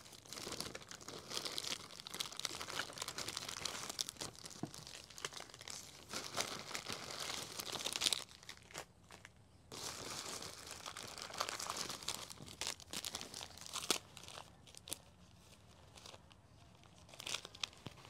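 Plastic bag rustling and crinkling as things are taken out of it and unwrapped, in several spells of crackling with short pauses between them.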